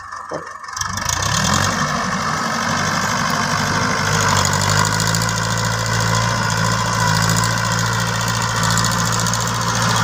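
TAFE tractor's diesel engine picking up speed about a second in, then running steadily under load while it drives a rear-mounted rotary tiller through the soil.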